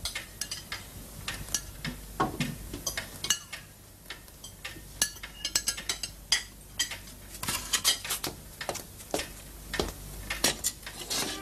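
Metal spoons clinking and scraping against plates as several people eat at a table: many short, irregular clinks overlapping one another.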